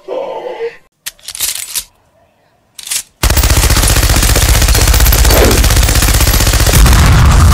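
Machine gun firing one long unbroken burst of rapid shots, starting about three seconds in. Before it come two short bursts of noise.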